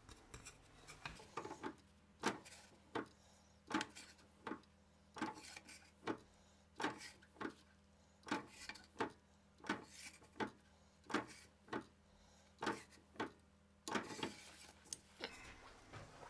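Repeated sharp knocks, about one or two a second, of a branding iron mounted in a drill press being pulled down onto a plywood sheet and lifted off again, with a faint steady hum underneath.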